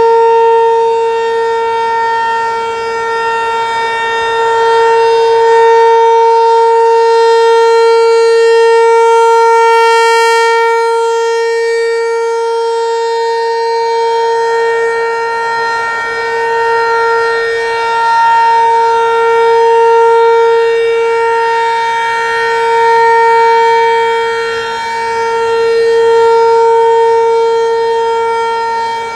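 Federal Signal Equinox rotating warning siren sounding a steady single-pitch alert tone of about 465 Hz. Its loudness swells and fades slowly as the siren rotates.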